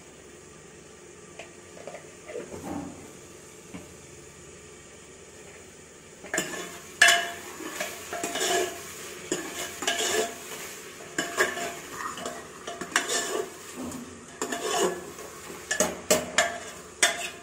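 A steel ladle scraping and knocking against the inside of an aluminium pressure cooker as chicken and masala are stirred and fried, with a faint sizzle. The stirring starts about six seconds in and goes on as a quick run of scrapes and clanks, the loudest knock just after that.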